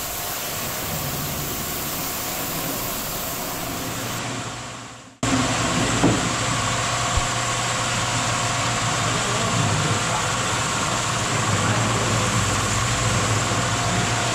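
Pressure washer running: a steady motor hum under the hiss of the water jet spraying a Sea-Doo Spark jet ski's hull. The sound fades out about five seconds in and comes straight back in.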